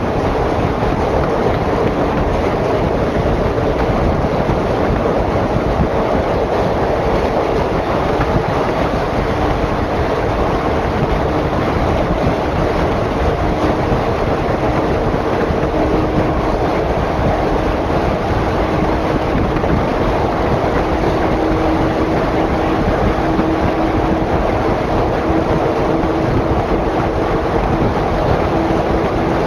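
Train running at speed through a rail tunnel, heard through an open carriage window: a loud, steady rush of wheels on rail. A faint steady hum grows stronger after about ten seconds.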